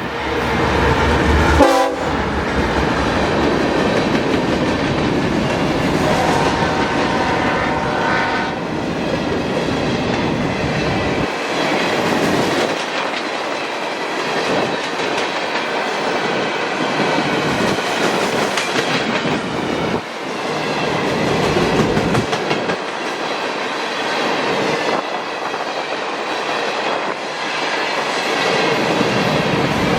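A freight train led by a GE CW44AC diesel locomotive rolls past with a string of open hopper cars, the wheels clicking and clacking over the rail joints. The locomotive's horn sounds at the start and again a few seconds later.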